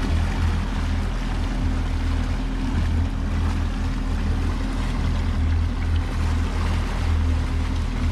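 Boat engine idling steadily, with wind and water noise around it.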